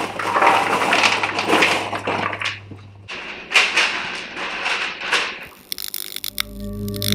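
Microwave popcorn poured from its paper bag into a plastic bowl, rustling and rattling in two spells. Ambient music with sustained ringing tones fades in near the end.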